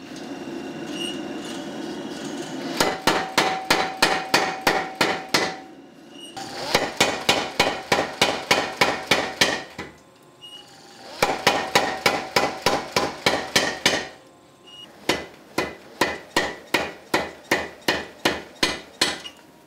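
Power hammer striking a red-hot steel bar in four runs of rapid blows, about three or four a second, with a metallic ring through each run, drawing out a taper. A steady low rumble fills the gaps between runs.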